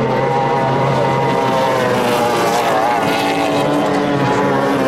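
Outboard engines of Formula 2 tunnel-hull racing powerboats running at high revs, the engine note steady with slight wavers in pitch.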